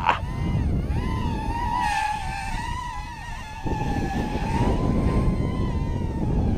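A small quadcopter's 1306 brushless motors and propellers whining, the pitch wavering and dipping as the throttle changes, over a low rushing of wind on the microphone.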